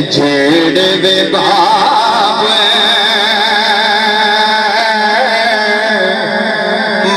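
A man singing a Punjabi kalam, holding a long wavering note from about a second and a half in, over a steady drone.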